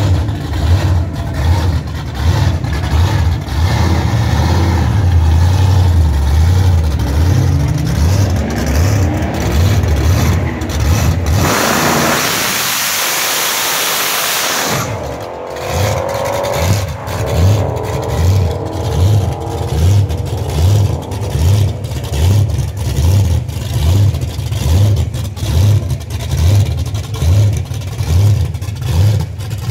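Drag-racing Edsel's engine running and revving up, then about three seconds of loud tyre hiss from a spinning burnout in a cloud of smoke. The revs then fall back to a rough idle that rises and falls regularly, a little over once a second, as the car creeps toward the line.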